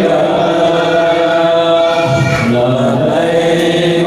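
A group of voices chanting in unison in Islamic devotional sholawat, with long held notes; the melody moves lower about two seconds in.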